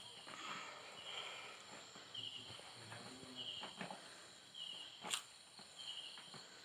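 Screwdriver turning a screw into the sheet-metal frame of an LCD backlight panel, with faint scratching and one sharp click about five seconds in. A short high chirp, like an insect's, repeats about once a second behind it.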